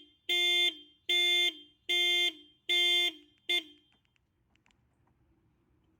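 Car alarm sounding a run of five steady, buzzy electronic beeps, a little over one a second. The last beep is cut short and the alarm stops about three and a half seconds in.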